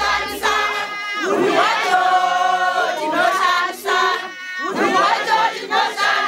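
A group of women and men singing together, loud, in phrases with short breaks between them.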